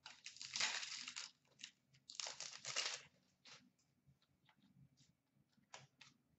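Upper Deck hockey card pack wrapper torn open and crinkled in two bursts, the second about two seconds in, followed by a few light taps of cards laid on a glass counter.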